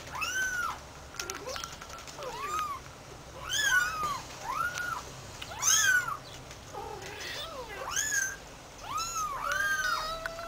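Very young kitten mewing over and over: short, high-pitched, arching cries, about one a second. A lower, longer cat call comes near the end.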